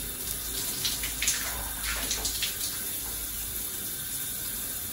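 Shower spray running steadily, with a few brief louder splashy noises between about one and two and a half seconds in.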